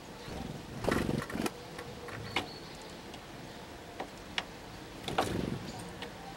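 Great tits at a wooden bird feeder: a scatter of sharp taps of beaks and feet on the wood as they peck at seed, with two louder rustling flurries of arriving and leaving birds, about a second in and about five seconds in.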